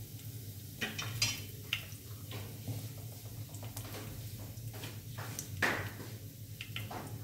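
Cumin seeds frying in hot oil in a kadai, giving scattered light crackles and pops over a low steady hum. The loudest pop comes a little past halfway.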